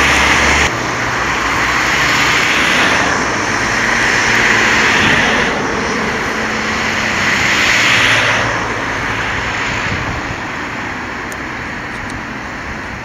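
Road traffic going by close at hand: several cars pass one after another, their tyre and engine noise swelling and fading, with the traffic thinning out near the end.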